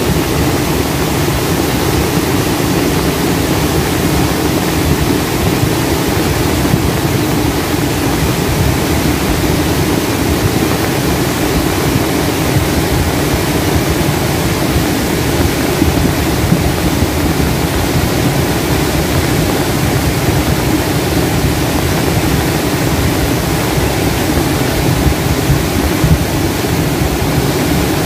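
Loud, steady rush of a river in flood, its fast-flowing water a continuous even noise with no breaks.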